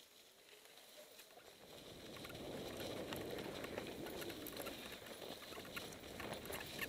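Mountain bike tyres rolling over dry leaf litter on a forest trail, a rough crackling rustle with small clicks and rattles from the bike. It grows louder about two seconds in.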